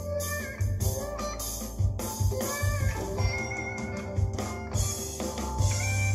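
A song with singing, guitar, bass and drums playing through a Sonos wireless speaker during a listening test.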